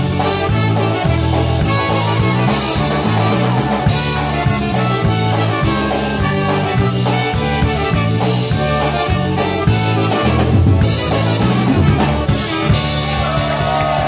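Live polka band playing: piano accordion, two trumpets and a drum kit over a bouncing two-beat bass.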